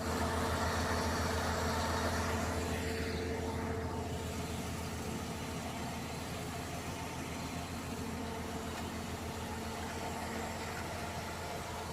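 Milk collection truck's engine running steadily, a constant low drone with no change in speed.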